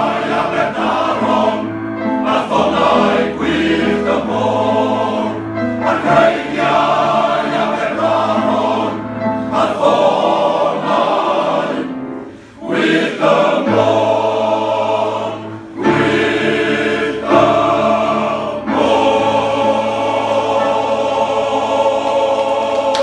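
Welsh men's choir singing in close harmony, long held chords over low bass notes, with a short break between phrases about halfway through.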